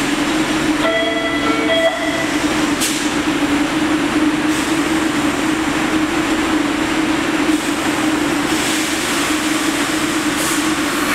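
Bombardier-built MBTA Red Line subway car standing at the platform with a steady low hum from its equipment. About a second in, a two-note chime sounds, the warning before the doors close.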